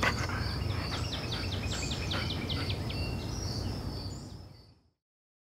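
Park ambience of birds and insects: a steady high insect trill with a run of short bird chirps, fading out to silence about four and a half seconds in.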